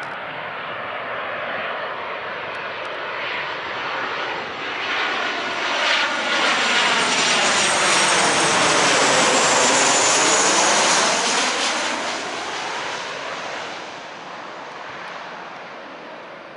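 Boeing 737-800 jet airliner with CFM56 turbofans on final approach, gear down, passing low overhead. The engine noise builds to its loudest about eight to eleven seconds in, a high whine drops in pitch as it passes, and it fades as the plane moves away.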